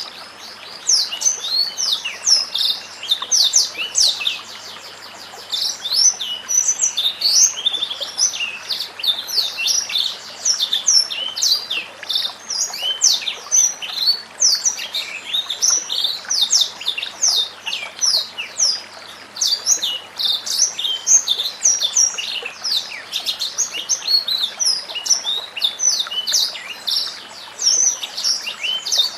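White-rumped shama (murai batu) singing a fast, unbroken stream of high chirps and whistles, many notes a second, with a short lull about four seconds in.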